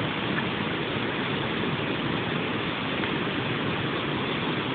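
Steady rush of falling water from a park's man-made waterfall.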